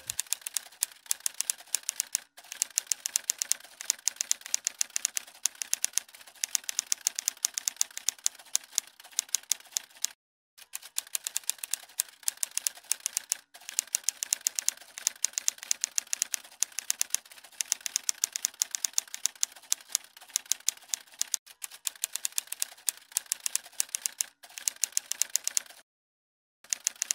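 Typewriter typing sound effect: a fast, steady run of key clicks as text is typed out, with a short pause about ten seconds in and a stop shortly before the end.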